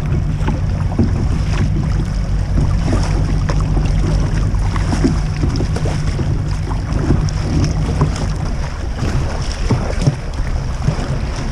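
Strong wind buffeting the microphone as a loud, steady low rumble, with irregular splashes of sea water slapping against the kayak.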